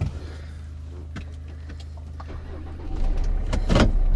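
Inside the cabin of a 2012 Kia with a 2.2 diesel engine: a low engine hum with a few light clicks from handling the controls. About three seconds in, the diesel rumble gets louder and stays up, with a sharp knock shortly before the end.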